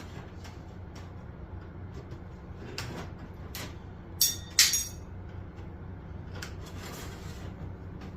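Sheet metal and hand tools being handled on a workbench: light clicks and knocks, with two sharp metallic clanks about four seconds in that ring briefly. A steady low hum runs underneath.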